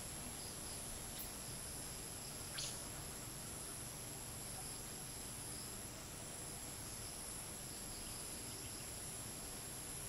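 Steady high-pitched chorus of crickets and cicadas, the top band pulsing gently. One brief sharp chirp cuts through about two and a half seconds in.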